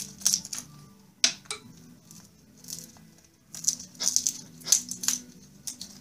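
Blue-and-gold macaw chewing and splintering a wooden block with its beak: irregular sharp cracks and snaps in quick clusters with short pauses between, the densest run about two-thirds of the way through.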